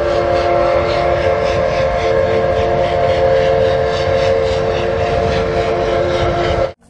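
Steam locomotive whistle blown in one long, steady blast of several notes at once, over the low rumble of the moving train; it cuts off suddenly near the end.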